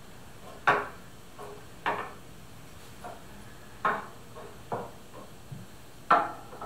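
Onta-yaki stoneware cups and small vases being picked up and set down on a table: five sharp clacks of pottery on the tabletop, each ringing briefly, with fainter clinks in between.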